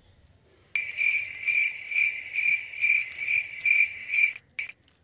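Cricket chirping: a high, even chirp pulsing about two and a half times a second, starting abruptly under a second in and stopping about four seconds in.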